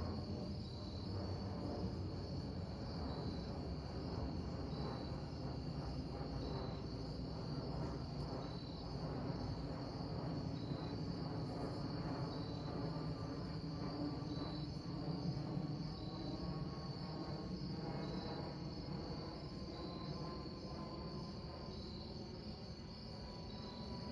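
Crickets chirping steadily over a continuous low rumble from a distant aircraft passing overhead.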